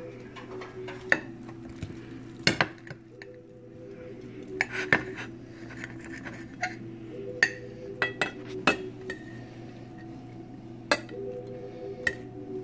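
Table knife cutting through a crisp-fried ramen grilled cheese sandwich, its blade clinking and scraping against a ceramic plate in a dozen or so sharp, irregular clicks.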